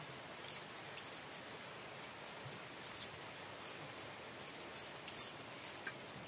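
Scattered light clicks and clinks of eating by hand: bangles clinking on the wrist, a steel bowl set against a banana leaf as curry is tipped out, and rice being mixed with the fingers.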